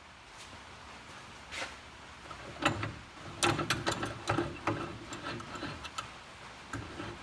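Vise being cranked tight to press a wooden pen's end cap into its barrel: a run of irregular clicks and knocks from the screw and handle, starting about two and a half seconds in.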